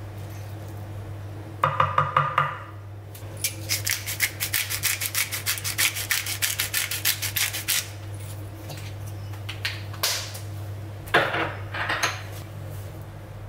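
Knife chopping cooked jackfruit on a wooden chopping board: a short run of chops, then rapid, even chopping at about five strokes a second for about four seconds, with a few more short clatters later.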